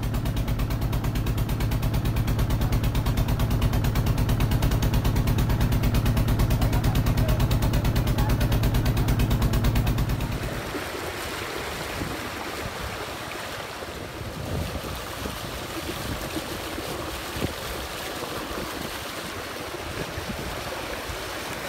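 A boat's engine running steadily with a low, fast even beat for about ten seconds. It then gives way to a quieter wash of wind and water noise with scattered small splashes.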